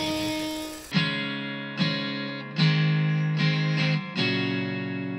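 Electric guitar playing a short phrase of picked notes and chords, starting about a second in, with the last chord left ringing and fading out.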